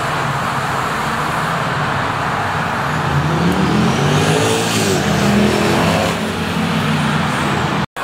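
City street traffic with a motor vehicle passing close by. Its engine note swells and bends in pitch from about three seconds in and fades by about seven seconds. The sound cuts out for an instant just before the end.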